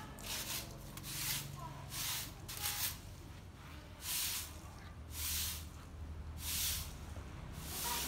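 Long-handled broom sweeping leaves across a tiled courtyard floor: a run of brisk swishes, about one a second, each stroke scraping the bristles over the tiles.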